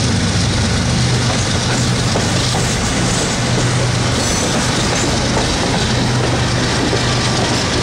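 Empty coal hopper cars of a freight train rolling past close by, their wheels clattering steadily on the rails over a low, steady hum.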